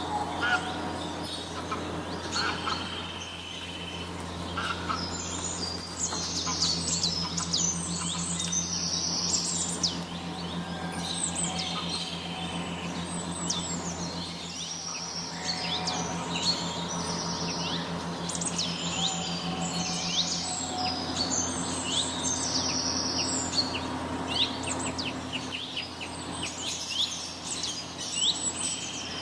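Many small birds chirping and trilling together in an aviary, with dense, overlapping calls, over a steady low hum.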